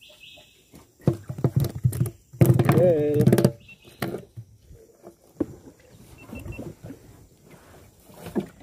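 Knocks and thumps on a boat's deck, rising to a burst of rapid rattling knocks about two and a half seconds in, as a freshly caught small fish flops about and is handled; a brief voice sounds over the loudest part.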